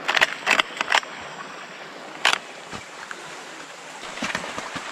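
Boots scuffing and crunching through wet forest undergrowth, a quick cluster of sharp rustles in the first second and another about two seconds in, over a steady rush of running water from a bush stream.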